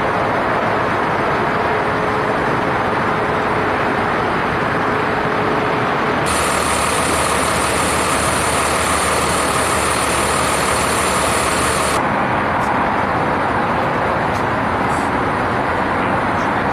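Steady road traffic and vehicle engine noise, with no single event standing out. The sound changes abruptly about six seconds in and changes back about twelve seconds in.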